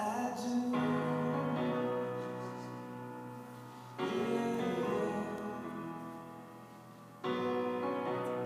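Slow piano music: sustained chords struck at the start, just under a second in, at about four seconds and again at about seven seconds, each left to ring and fade.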